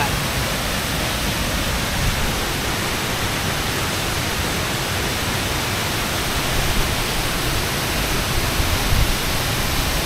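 A waterfall rushing through a canyon: a steady, unbroken roar of falling water.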